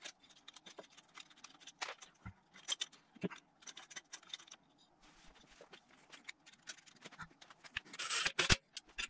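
Scattered light clicks and knocks of metal parts handled as a turbocharger is turned on its manifold studs. Near the end comes a louder run of clicks as a ratchet wrench works the turbo's mounting nut.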